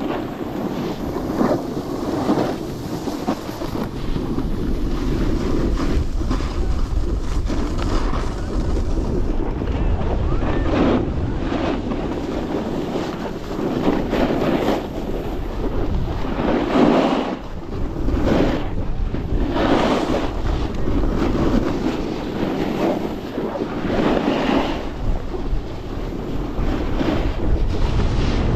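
Wind buffeting the microphone at riding speed, with snowboard edges scraping over firm groomed snow that swells and fades every few seconds as the turns are carved.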